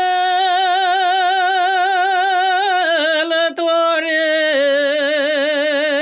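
A woman singing a slow Romanian church hymn (a priceasnă) unaccompanied. She holds long notes with a wide, even vibrato, and the melody steps down about halfway through and again a little later, with a short break for breath between.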